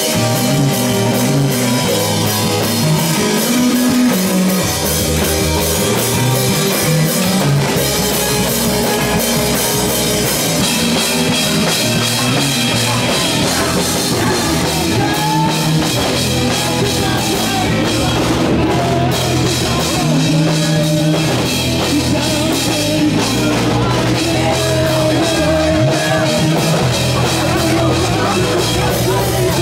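Live rock band playing loudly: drum kit and electric guitar.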